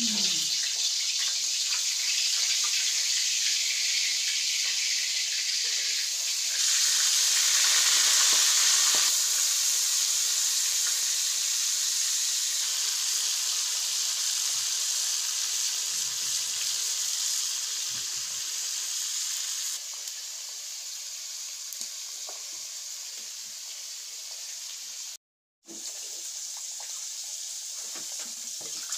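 Fish pieces frying in hot oil in an iron kadai: a steady sizzle that swells louder for a couple of seconds about seven seconds in, then settles lower about two-thirds through.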